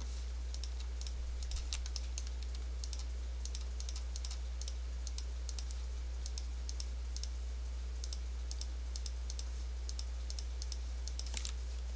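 Computer mouse clicking in quick, irregular clicks, often in pairs, a few per second, as polygon faces are selected one by one. Under the clicks runs a steady low hum.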